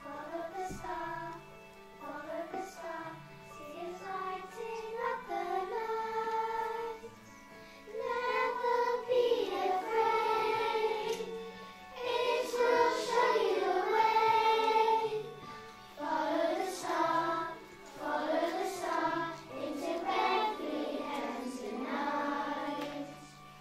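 A group of children singing a song together with musical accompaniment, the singing growing louder and fuller about eight seconds in.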